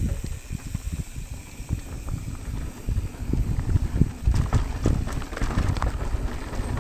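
Mountain bike riding down a dirt trail: tyres rumbling over the dirt, with irregular knocks and rattles from the bike over bumps, busier from about four seconds in.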